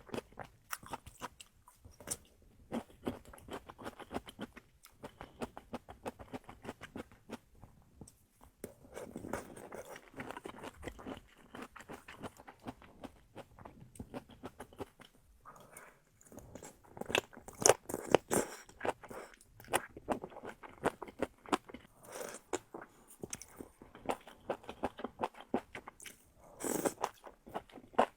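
Close-miked eating: biting into and chewing duck feet, a dense run of crunches and wet chewing clicks, loudest about two-thirds of the way through.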